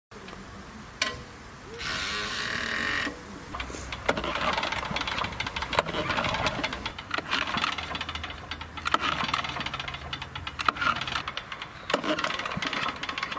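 Engine of a vibratory plate compactor being cranked over again and again in surges, failing to start.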